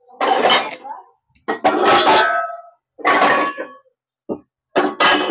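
Metal kitchen vessels and utensils clanking and scraping in five short bursts, the last one brief, with a faint ringing of metal.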